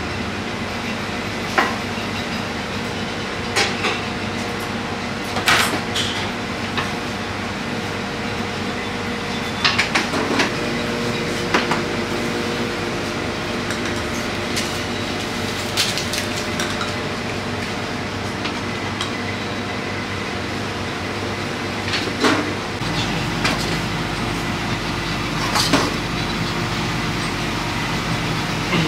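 Metal pizza pans clanking now and then as they are lifted and stacked, over a steady hum of kitchen machinery. The low hum grows deeper in the last few seconds.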